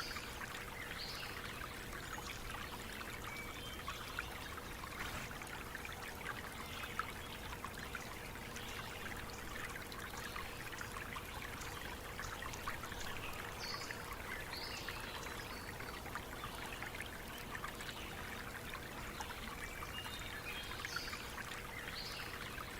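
Small stream trickling and splashing steadily, with a few faint, short high chirps now and then.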